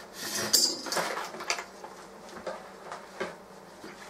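Clatter and rustle of computer hardware and cables being handled: a rattling burst a little after the start, then a few scattered knocks.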